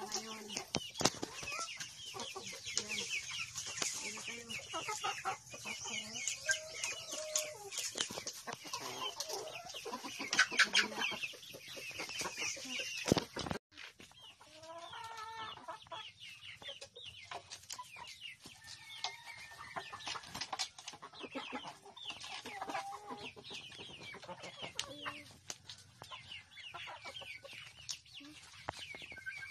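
A flock of chickens clucking steadily as they crowd around and peck at a hanging bunch of cassava leaves, with frequent short taps and rustles among the calls.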